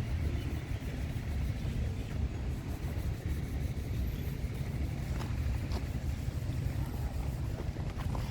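Street ambience heard while walking: a steady low rumble, with a few faint clicks about five to six seconds in and again near the end.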